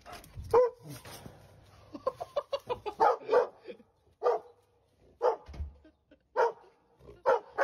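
A dog barking in short single barks, with a quick run of them about three seconds in and then one about every second.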